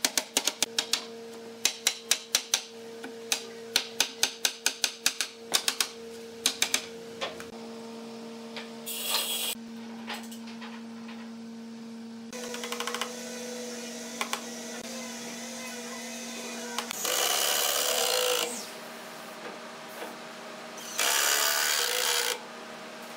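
Quick hammer blows on a wooden cabinet frame, several a second, for the first seven seconds or so. After a pause, a cordless drill drives screws in short bursts, the last two the loudest.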